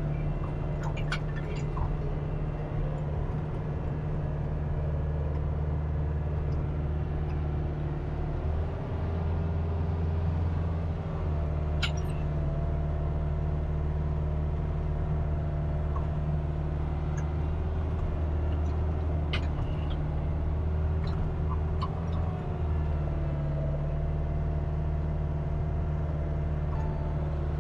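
Kubota RX-503S mini excavator's diesel engine running steadily under load while the arm and bucket dig and dump earth, with a whine that shifts in pitch as the controls are worked. There are a few sharp clicks, about a second in, near the middle and about two-thirds of the way through.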